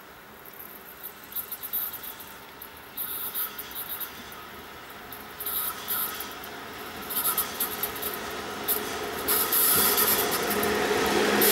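VL11M DC electric locomotive hauling a freight train, approaching along the track. Its running noise grows steadily louder as it nears and is loudest near the end.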